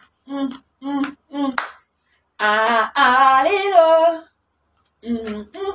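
A woman singing unaccompanied: three short sung syllables, then a long, loud held note that wavers in pitch, then a few short syllables again near the end.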